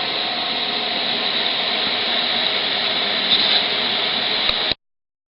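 Steady rushing background noise with no rhythm or distinct events, which cuts off suddenly about three-quarters of a second before the end into complete silence.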